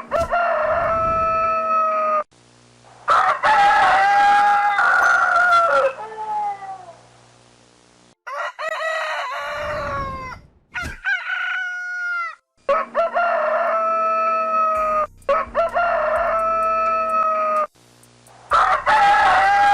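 Rooster crowing repeatedly, about seven loud crows one after another with abrupt cuts between them.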